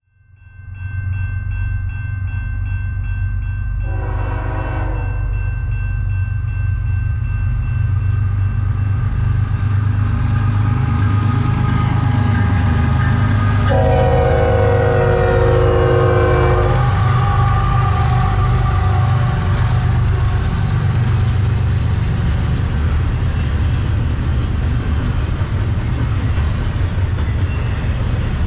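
Two diesel locomotives heading a freight train pass at speed, with a steady low engine rumble; the locomotive horn sounds a short blast about four seconds in and a longer blast of about three seconds near the middle. Later the rolling rumble of the double-stack container cars on the rails takes over.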